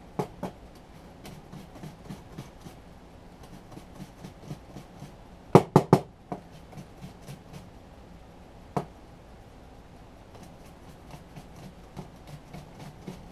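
Onion being sliced on a handheld mandoline slicer: a run of light clicking strokes, about three a second. Three loud knocks come in quick succession near the middle, and another a few seconds later.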